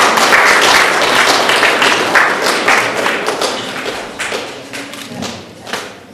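Audience applauding a prize-winner, loud at first and dying away over several seconds.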